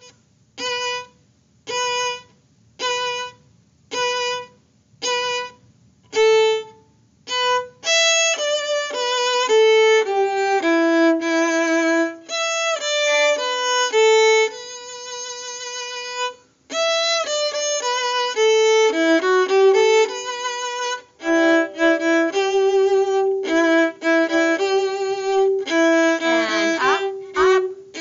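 Solo violin playing the second-violin part of a string-orchestra piece. It opens with a run of short, separate notes on one pitch about a second apart, then moves into a flowing melody of connected notes with some vibrato.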